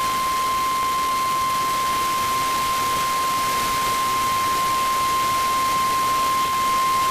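Emergency weather alert tone, the NOAA Weather Radio 1050 Hz warning alarm: one steady, high, unwavering tone held without a break over a layer of broadcast hiss. It signals that a warning message is about to be read.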